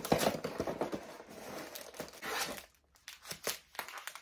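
Cardboard snack box being opened and its wrapped fruit-snack packs rustling and crinkling as they are handled; after about two and a half seconds it thins out to a few light crinkles.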